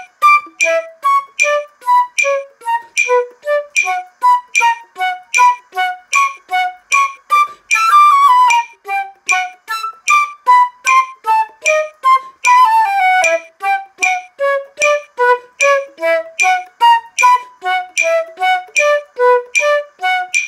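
Flute playing a steady stream of short, separately tongued notes, about two to three a second, stepping up and down in pitch as a double-tonguing exercise. Twice, about eight and about twelve and a half seconds in, a quick run of notes slides downward.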